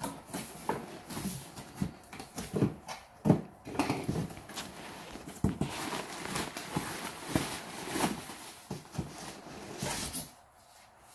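Plastic fish-shipping bags rustling and crinkling as they are handled, with a few sharper knocks as the box's cardboard and foam insulation panel are moved. It dies down near the end.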